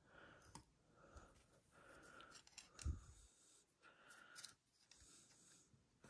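Faint metal clicks and rubbing from a Leatherman Crunch multitool as its locking pliers jaws are clamped onto a reciprocating-saw blade, with a soft thump about three seconds in.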